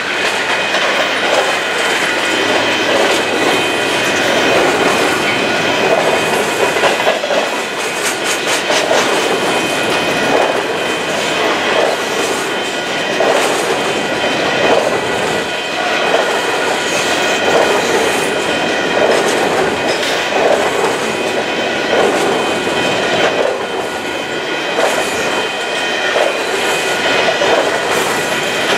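Empty covered hopper grain cars rolling past at speed, their steel wheels clattering over the rail joints in an uneven clickety-clack that swells and eases every second or two. Several thin, steady high-pitched tones ring over the rumble.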